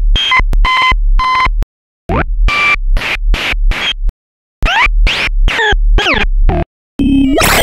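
A run of synthesized sci-fi glitch sound effects, each a second or two long with short silent gaps between. First come stuttering digital chops with steady beeping tones, then effects built of quickly repeating rising pitch sweeps, and near the end a dense, noisy glitch begins.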